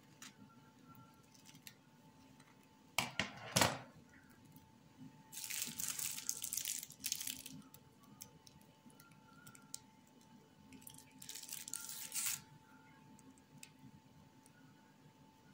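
Two sharp knocks, a knife set down on a plate, then two spells of plastic rustling as a piping bag of cream is squeezed into a cut fried dumpling.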